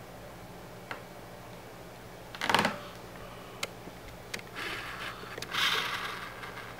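Handling noise from fingers working a cotton wick and wire leads through a small atomizer part. There are a few light clicks, a louder short rustle or knock about two and a half seconds in, and soft rustling near the end.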